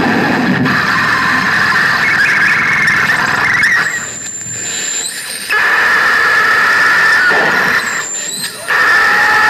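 Harsh electronic noise music played live: a loud, squealing wall of noise with a steady high shriek running through it, dropping away twice for a second or so before slamming back in.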